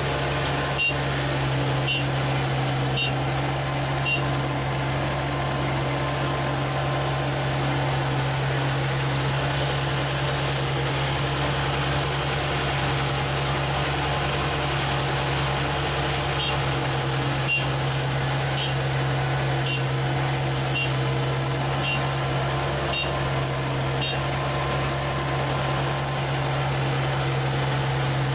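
ISEKI combine harvester running steadily while cutting rice, with a constant engine hum. Short high beeps sound about once a second in two stretches, near the start and again in the second half.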